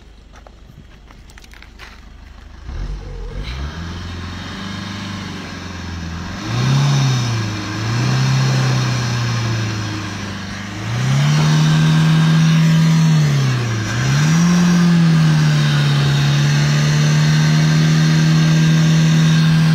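Maruti Baleno's 1.3-litre diesel engine accelerating, heard from inside the cabin. The engine note climbs, drops at a gear change about seven and a half seconds in, climbs again, drops at a second gear change near fourteen seconds, then holds steady and loud.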